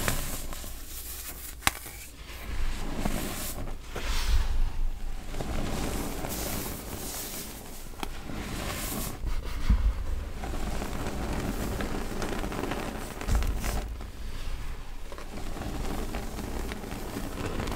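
Hands squeezing and crushing clumps of packed baking soda, a continuous soft crunching and crackling that swells and fades with each squeeze as the clumps break apart.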